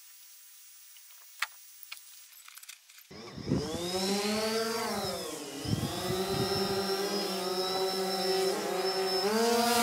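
A couple of faint clicks, then about three seconds in a quadcopter drone's motors spin up and it lifts off: a loud, many-pitched propeller hum with a high whine above it, sinking and rising in pitch as the drone climbs and manoeuvres.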